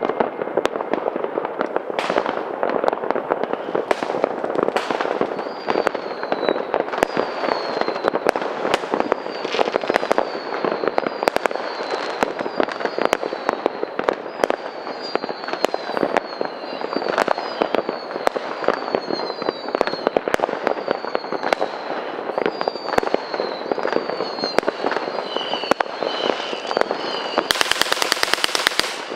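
New Year's midnight fireworks: a dense, continuous crackle of many bangs and firecrackers going off at once. Short falling whistles repeat from about five seconds in, and a fast rattle of bangs comes near the end.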